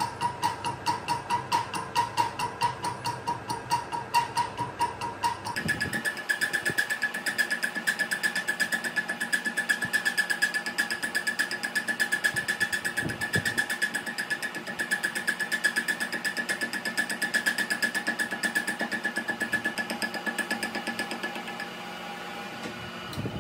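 Metal lathe running, a cutter on a bar in the spinning chuck cutting the teeth of a pipe wrench's jaw: a steady machine whine with a regular clatter several times a second. The whine shifts in pitch about five seconds in, and the machine winds down near the end.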